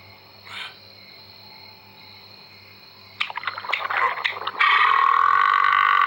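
Stomach growling: a run of irregular gurgles about halfway through, then a loud drawn-out growl that holds steady in pitch for about two seconds.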